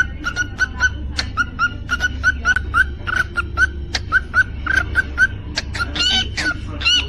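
Cockatiel chirping: a fast run of short repeated chirps, about three or four a second, with a few higher, rising whistled calls near the end.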